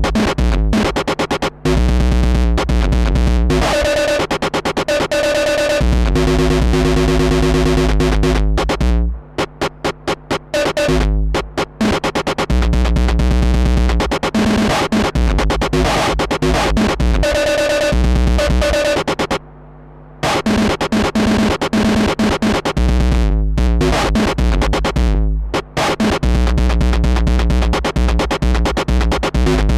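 Roland TR-6S drum machine beat loop run through analogue distortion and overdrive, dense and heavily distorted. Around ten seconds in it breaks into fast stuttering repeats from the step looper, and it cuts out briefly about two-thirds of the way through.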